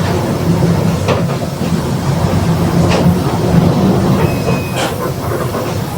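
Ride noise of a Mercedes-Benz OF 1721 BlueTec 5 city bus with a Marcopolo Torino body: a steady low drone from the engine and driveline, the driveline drone being the growling differential, with brief body rattles or clacks about every two seconds and a short high squeak about four seconds in.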